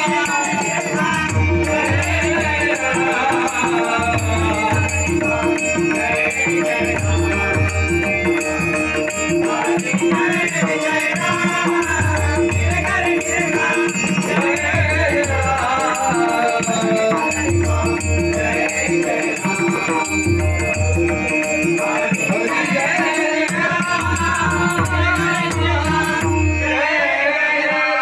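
Devotional bhajan singing, a lead voice with a group, over held harmonium tones, a repeating low drum beat and the steady jingle of small hand cymbals.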